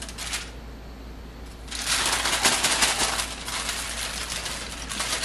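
Aluminium foil crinkling and crackling as it is handled and folded up around a baking sheet. It stops briefly about half a second in, then starts again a second later and keeps going.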